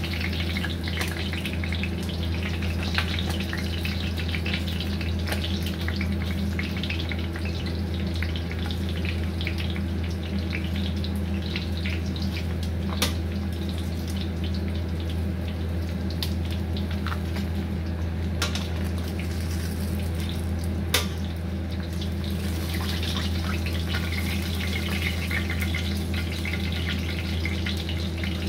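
Hot cooking oil sizzling and crackling in a pan as fried fish are lifted out, with a few sharp clicks of metal tongs, over a steady low hum.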